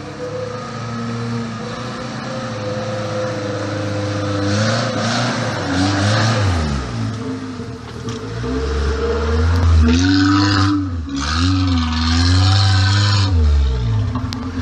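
Off-road 4x4 engine running steadily, then revved hard in two surges about halfway in and in the last third, its pitch climbing and dropping. Each surge carries a rushing hiss.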